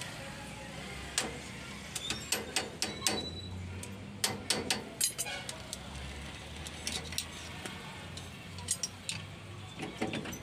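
Steel screwdriver knocking and scraping against the metal inside a truck's rear wheel hub, giving irregular clusters of sharp metallic clicks.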